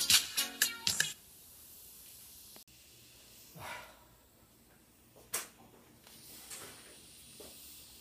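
Music played through a bare test speaker unit, cutting off abruptly about a second in. Then only faint hiss, with a brief soft swell and one sharp click.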